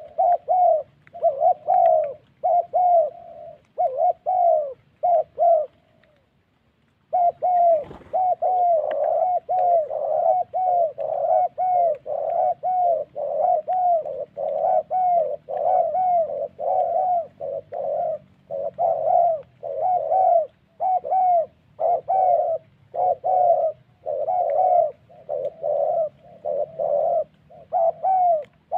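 Caged spotted dove decoy cooing in a long run of short, rapid coos, about two a second, pausing for about a second near the quarter mark. A single sharp thump comes just after the pause.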